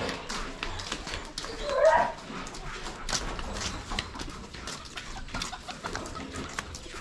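A dog gives one short yelp about two seconds in, among scattered clicks and rustling.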